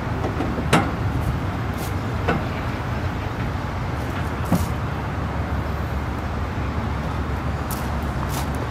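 Cummins ISM diesel engine of an International 8600 truck idling with a steady low rumble. A few sharp clicks and knocks stand out, at about one second in, two seconds in and four and a half seconds in.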